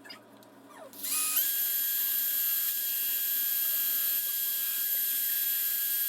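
High-speed rotary tool spinning up about a second in, its high whine stepping up in pitch, then running steadily while it grinds flat a plastic lip inside an electric scooter's battery housing.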